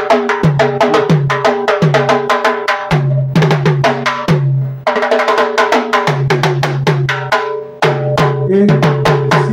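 Timbales played solo in fast Afro-Cuban rhythms: rapid sticked strikes on ringing, pitched drumheads, with two short breaks in the pattern about five and eight seconds in.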